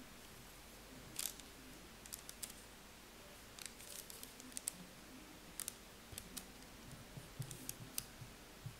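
Homemade stylus pressing wedge marks into a soft clay tablet: a series of light, sharp clicks and ticks at irregular intervals.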